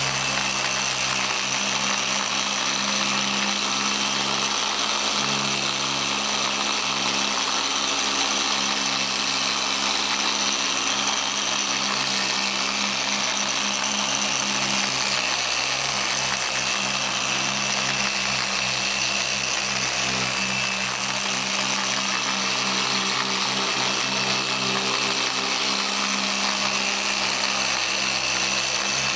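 Handheld variable-speed electric polisher running steadily at a mid-to-high speed setting, its pad buffing metal polish into a table saw's metal top.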